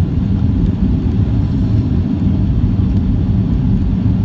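Jet airliner cabin noise in flight: a steady low rumble of engines and rushing air, heard from inside the cabin.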